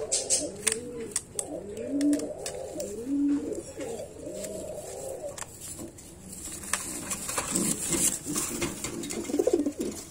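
Pigeon cooing: repeated low, rising-and-falling coos through the first half, then softer, more broken cooing, with scattered light clicks.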